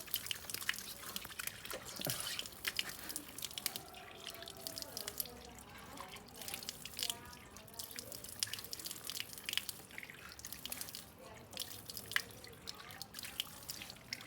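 Water dripping and splashing in quick, irregular spatters as a dog is being washed.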